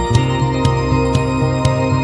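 Background music: sustained chords with a light beat of about two strikes a second that comes in just as it begins.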